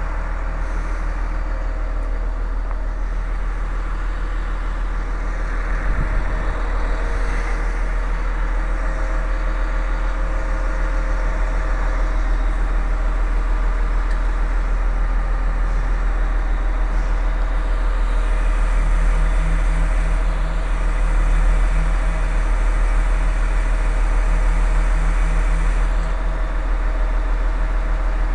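A large engine idling steadily, a continuous low drone that grows slightly louder in the second half.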